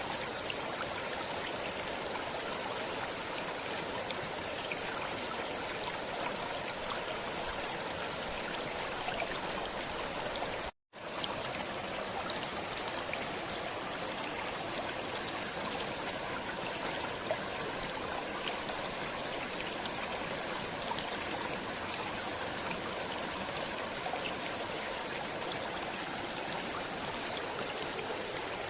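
Steady sound of a flowing stream, broken by a split-second gap of silence about eleven seconds in.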